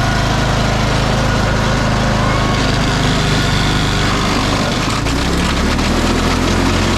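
Cub Cadet riding mower engine running steadily under load. About five seconds in its note drops and a rapid clatter of knocks sets in, the sound of the engine failing.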